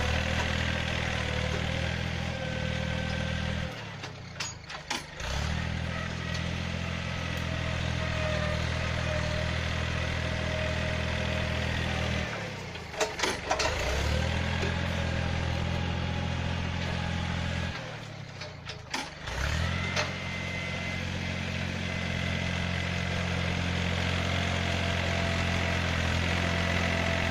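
Yanmar 1145 tractor's diesel engine running steadily under load while pushing soil with its front blade. The steady run is broken three times by short dips in the engine sound with sharp clunks.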